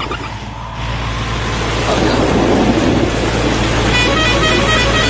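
A vehicle engine running steadily, getting louder over the first two seconds, with a quick run of short horn toots about four seconds in.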